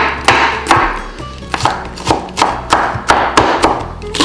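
Chef's knife chopping jalapeño peppers on a wooden cutting board, quick knocks about two to three a second, over background music.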